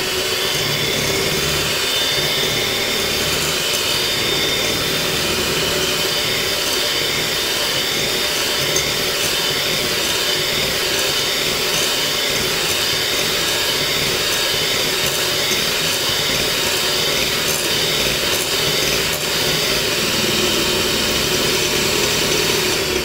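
Electric hand mixer running steadily at speed, its twin wire beaters whirring through cake batter as an egg is beaten into the creamed sugar.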